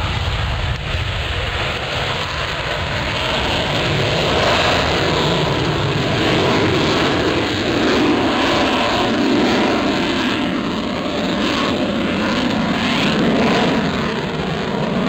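F-22 Raptor's twin F119 afterburning turbofan engines: a loud, steady jet roar that swells about three seconds in and holds as the fighter flies its display.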